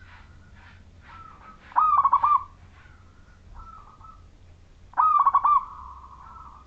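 Zebra dove (perkutut) cooing in full song: two phrases about three seconds apart, each a quick run of rolling coos followed by softer, drawn-out notes.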